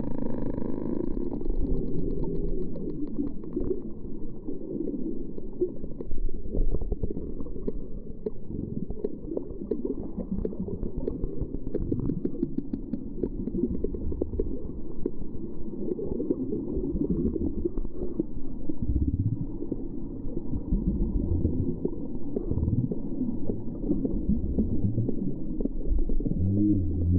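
Ocean sound heard as a continuous low rumble, with a few deep tones sliding in pitch in the second half and a short steady low tone near the end.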